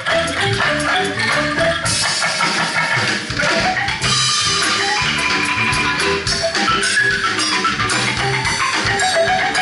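Live Sundanese bamboo ensemble music: a lively melody of short struck notes on pitched bamboo percussion over drums, with quick runs of notes up and down.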